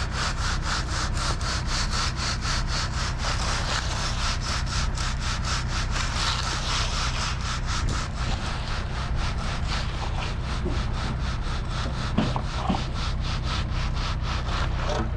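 Concrete being screeded with a wooden straightedge, the board worked back and forth in a sawing motion across the forms in steady strokes, about three a second. A diesel engine idles underneath.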